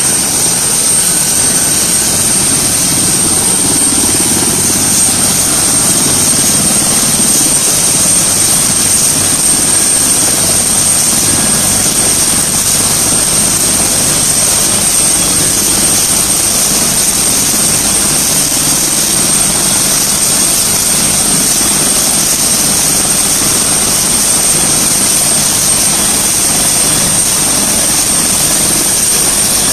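Turbine air-ambulance helicopter running on the ground with its main rotor turning. The rotor and engine noise is steady, with a constant high whine over it.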